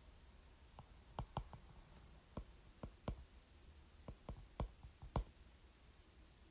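Stylus tip tapping and clicking on a tablet's glass screen during handwriting: about a dozen faint, sharp clicks at an uneven pace, over a low steady hum.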